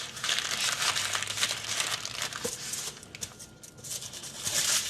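Parchment paper and aluminum foil crinkling as a sausage is rolled up tightly in them, easing off about three seconds in and starting again near the end.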